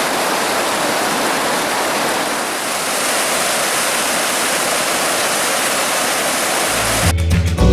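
Steady rush of a glacier-fed creek pouring through a rocky gorge in a small waterfall. Near the end the water cuts off and music with a deep bass comes in.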